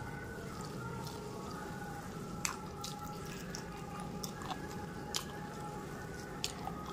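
Soft wet squishing of rice being mixed by hand with gravy on a metal plate, with a few sharp clicks.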